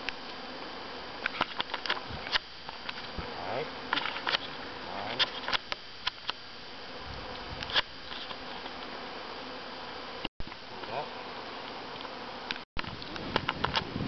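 A swarm of honey bees buzzing in a steady hum, with frequent sharp clicks and crackles from the shrub's branches being cut and handled.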